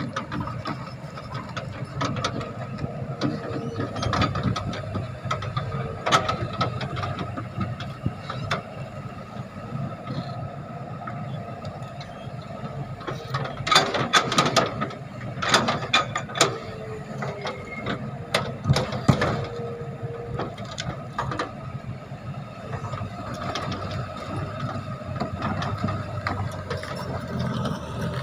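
Excavator running with a steady engine and hydraulic drone, and a cluster of sharp metallic clanks and knocks about halfway through.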